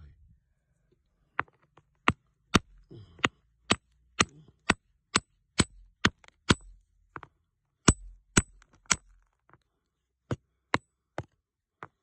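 Sharp stone-on-stone knocks, about two a second with a couple of short pauses, as a rounded pebble is struck on a flat anvil stone to crack it open and expose the crystal inside. Many of the strikes leave a brief high ring.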